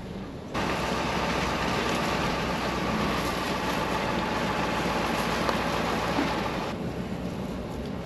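Pickup truck driving slowly over frozen pasture, heard with the window open: a steady rush of engine, tyre and wind noise that comes up suddenly about half a second in and drops back near the end.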